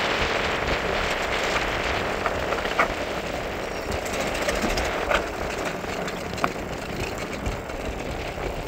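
Mountain bike rolling fast downhill on a rough dirt and gravel road: steady wind rush on the microphone and tyre crunch, with a few sharp clicks and knocks from the bike over bumps.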